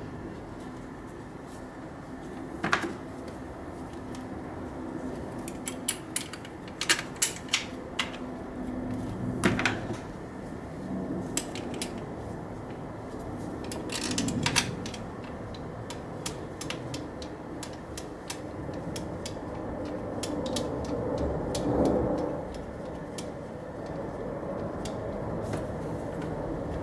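Scattered clicks and light knocks of metal and plastic parts being handled at a car's throttle body, several in a cluster in the first half, over a steady low hum.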